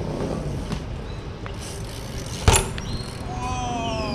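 A BMX bike's tyres and frame hitting the pavement once with a sharp clack about two and a half seconds in, over a steady rumble of traffic.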